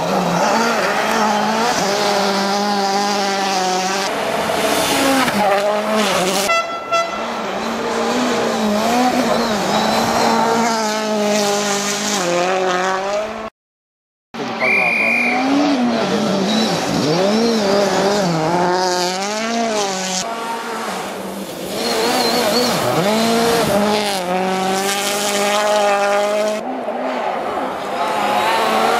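World Rally Cars with 1.6-litre turbocharged four-cylinder engines running flat out past the spectators, the engine note climbing and dropping again and again as they shift gear. The first car is a Citroën DS3 WRC. About halfway through, the sound cuts out for a moment, then another rally car comes past.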